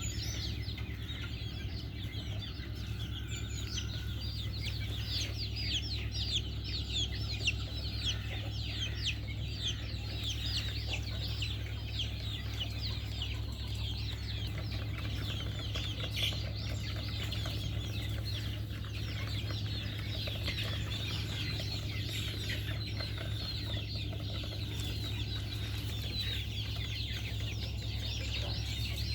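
A flock of chickens calling, many short high calls overlapping one another, over a steady low hum.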